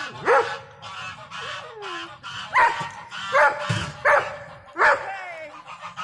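A dog barking five sharp, loud times, with geese honking in between.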